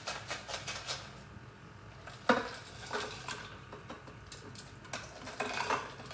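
Ice cubes clicking and knocking as they are shaken out of a bowl into a blender jar, with one sharp knock a couple of seconds in and a quick run of clicks near the end. The ice has frozen together into a clump, so only a few pieces tumble in.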